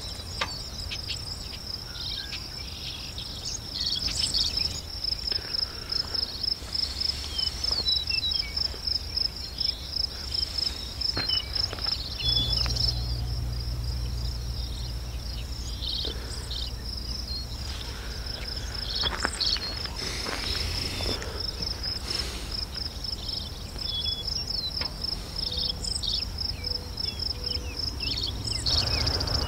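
Field insects such as crickets or katydids trilling in a steady, high, rapidly pulsing chorus, several pulses a second. A low rumble runs underneath and grows heavier about twelve seconds in.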